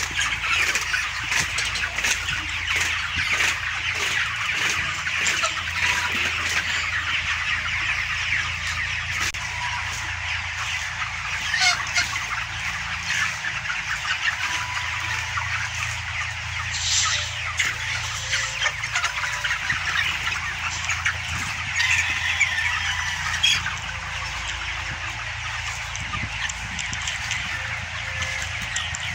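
A large flock of chickens calling all at once: a dense, unbroken chatter of overlapping clucks and cheeps, with a few louder single calls standing out, over a steady low hum.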